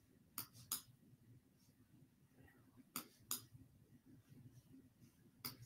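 Computer mouse double-clicking three times, each a pair of sharp clicks about a third of a second apart, over faint room hum.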